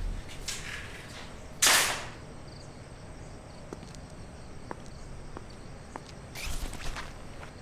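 Handling sounds of a man arriving home and undressing: a short loud swish about two seconds in, a few faint taps about a second apart, then a rustle of cloth near the end as a jacket comes off.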